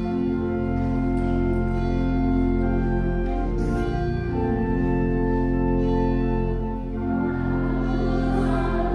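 Church organ playing slow, sustained chords, with singing voices joining in near the end.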